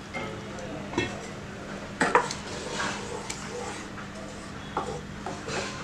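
Wooden spoon stirring simmering curry in a pan, knocking and scraping against the pan a few times.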